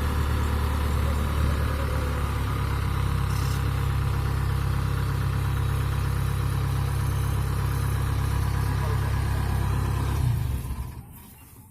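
Diesel engine of a Kubota DC70 Plus rice combine harvester running at a steady speed, a deep, even drone that drops away near the end.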